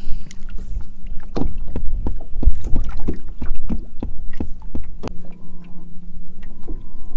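Choppy water slapping against a fishing boat's hull in irregular knocks, over a low wind rumble and a steady low hum. A faint steady tone comes in about five seconds in.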